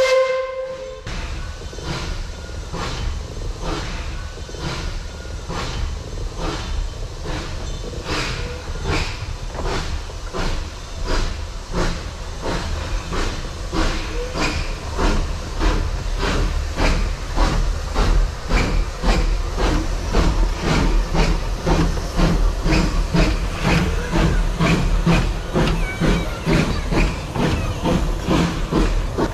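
Narrow-gauge steam tank locomotive under way: the end of a short whistle blast at the very start, then steady exhaust chuffs about two a second with steam hissing over a low rumble, as the engine and its wooden carriages roll close past.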